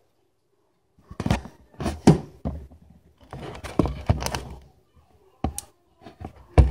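A run of irregular thuds and knocks, with a loud one about two seconds in and another near the end: handling bumps against a cardboard box.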